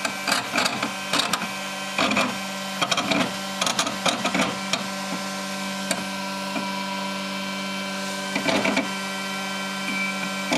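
FlashForge Dreamer 3D printer running: a steady motor whine with irregular bursts of clunking and clicking. The clunks crowd the first four seconds and come again about eight and a half seconds in.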